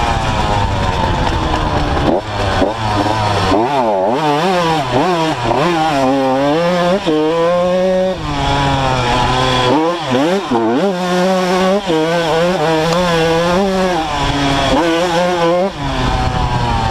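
Honda CR two-stroke motocross bike engine being ridden hard, its pitch rising and falling over and over as the throttle is opened and closed through the gears.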